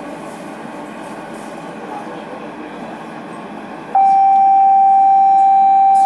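Steady interior noise of a DLR B2007 Stock train standing at a station platform. About four seconds in, a loud, steady, single-pitched electronic warning tone starts abruptly and holds.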